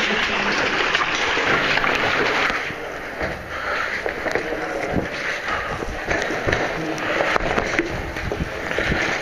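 Falling water rushing and spraying down a cave shaft, loud and steady, easing a little about three seconds in. Scattered knocks and scuffs of a caver moving through the spray.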